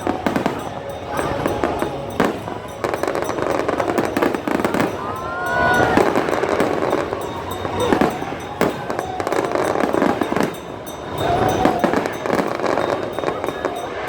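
Aerial fireworks bursting in quick, irregular succession, many sharp bangs over a constant background of music and voices.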